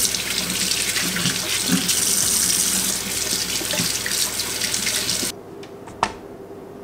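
Kitchen faucet running, its water stream splashing over potatoes being rinsed by hand in the sink. The water cuts off about five seconds in, and a single light knock follows a second later.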